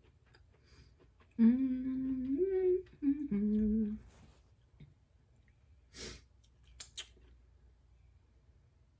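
A woman humming a short tune of a few held notes that step up and then back down, for about two and a half seconds. A brief breathy sound and a couple of small clicks follow near the end.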